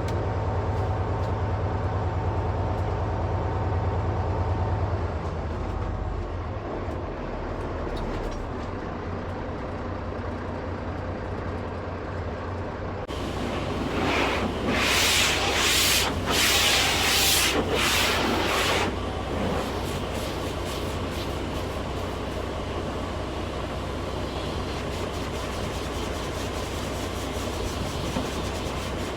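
A motor vehicle engine running steadily, with a low rumble. About halfway through come roughly five seconds of loud, hissing bursts.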